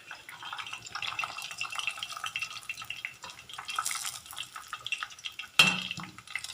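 Breaded chicken nuggets crackling in hot frying oil while a utensil clinks and scrapes against the pan as they are lifted out. One loud clank of metal near the end.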